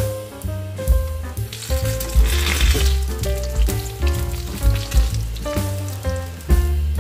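Eggplant slices sizzling as they fry in oil in a pan, loudest about two to three seconds in, under background music.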